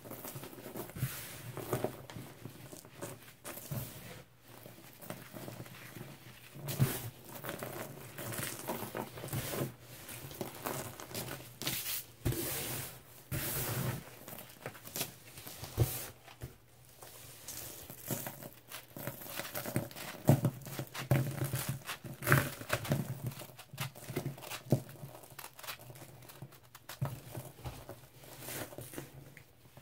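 Hands crumbling and squeezing a pressed slab of baking soda and scouring-powder cleanser and rubbing the loose powder between the fingers. The result is an irregular run of soft, crisp crunches and crumbles, with a few louder crunches now and then.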